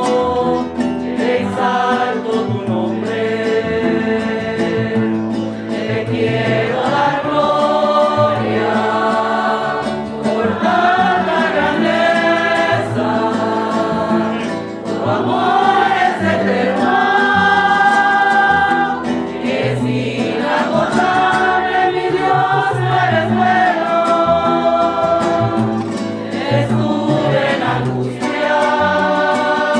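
Women's choir singing a Spanish-language hymn, with guitar accompaniment.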